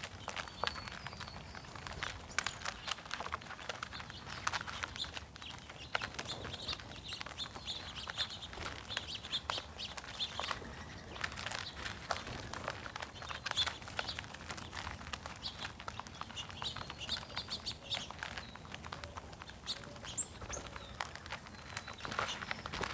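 Small birds chirping and twittering over one another, with a constant scatter of short sharp clicks and taps.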